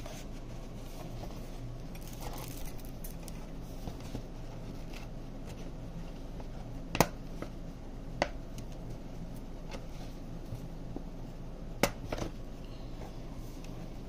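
Handling noise from a lampshade's metal wire frame and its clips: faint rustling and a few sharp metallic clicks, the loudest about halfway through and another near the end, over a steady low hum.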